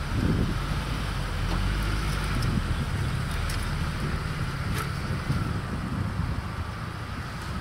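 UAZ Patriot SUV engine running at low, steady revs as the vehicle crawls through a ditch, with some wind on the microphone.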